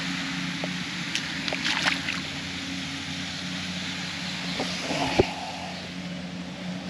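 Wind rushing over the microphone with a steady low mechanical hum underneath, a few small clicks, and a short splash with a knock about five seconds in as the largemouth bass is let go into the pond.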